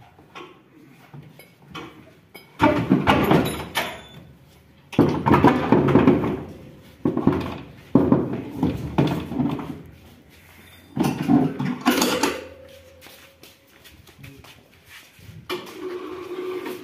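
The louvred sheet-metal sieve bed of a Swaraj 8100 combine harvester being dragged out of the machine by hand, scraping and clanking in about five heavy bursts of a second or two each.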